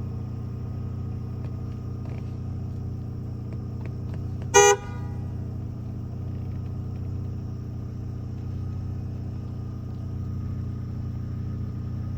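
An engine running steadily with a low rumble. A single short vehicle-horn toot sounds about four and a half seconds in.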